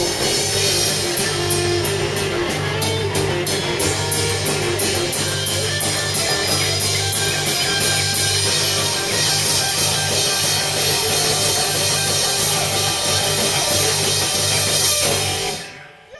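Live rock band playing electric guitars over a drum kit, with quick, even cymbal strokes in the first few seconds. The music stops abruptly near the end.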